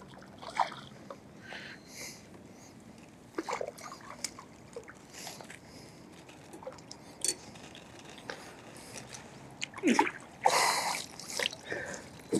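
Hooked herabuna (Japanese crucian carp) splashing at the water's surface as it is played in to the landing net, with scattered small splashes and a louder burst of splashing about ten seconds in.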